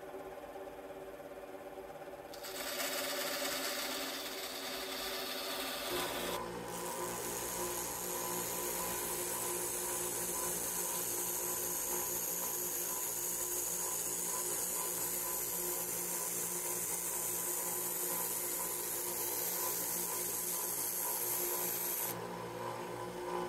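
A benchtop bandsaw runs and then cuts through a thin wood board for a few seconds. A small vertical belt sander follows, steadily sanding the edge of a plywood panel; the sanding stops about a second before the end, leaving the sander's motor running.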